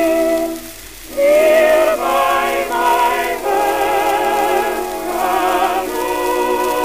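Music from a 1918 acoustic-era 78 rpm record of a sentimental ballad: voices and orchestra hold wavering, vibrato-laden notes in several parts, with a brief drop-off about a second in, over faint record-surface hiss.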